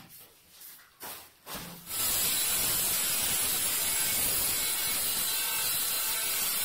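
A stiff push broom scrapes in short strokes over a concrete floor. About two seconds in, an angle grinder starts cutting through a large floor tile with a loud, steady, high grinding hiss.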